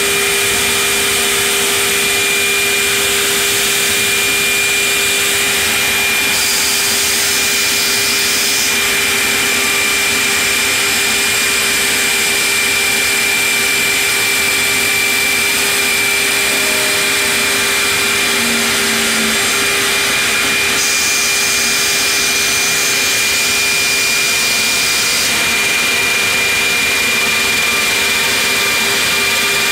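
CNC stair router's spindle cutting a trench into a 1.5 by 9.25 inch wooden stair board, a steady high whine over the rush of its dust extraction.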